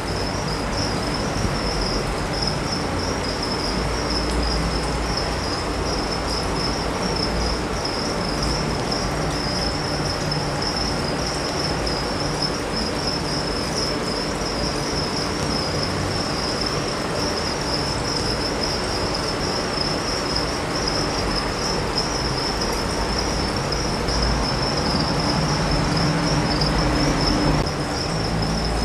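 Crickets trilling steadily in one continuous high-pitched note over an even background hiss.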